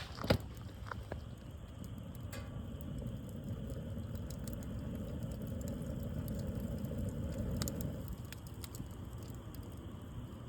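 Wood fire burning, with scattered small crackles and pops and one sharper crack just after the start, over a low steady rumble of the flames.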